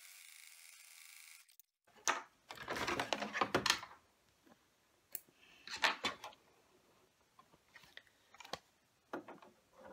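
Plastic embroidery hoop being unclipped and lifted off a Husqvarna Viking embroidery unit: several bursts of clicks, knocks and rustling, the sharpest near the middle and about eight and a half seconds in. A faint steady hum stops about a second and a half in.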